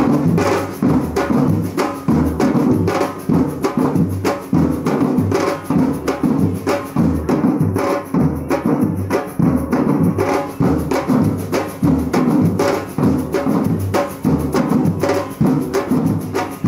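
Street percussion band playing a steady, even beat on large marching drums struck with padded mallets.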